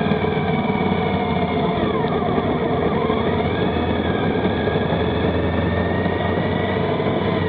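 Motorcycle engine running steadily while riding, its note dipping briefly and rising again about three seconds in.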